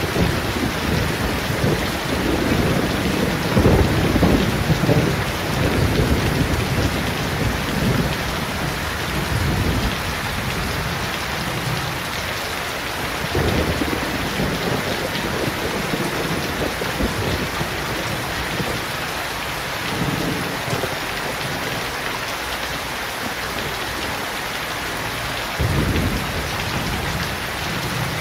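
Steady rain falling on leaves and a wet paved yard, with a few brief low rumbles, the strongest about four seconds in and again near the end.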